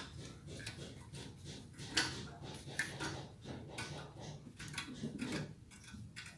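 Hand ratchet wrench clicking in short, uneven strokes as a bolt is loosened, with a few sharper metal clicks about two and three seconds in.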